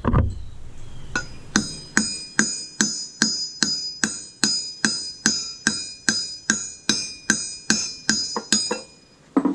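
Hammer blows on a 1/4-inch rod, driving the stuck, burnt-out air dinger out of a locomotive bell. About twenty sharp metallic strikes at a steady two to three a second, each with a high ring, start about a second and a half in and stop shortly before the end.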